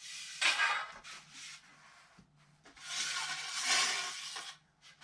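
Rubbing and scraping handling noise from carbon fishing-pole sections being set down and picked up, in two stretches of a second or two each.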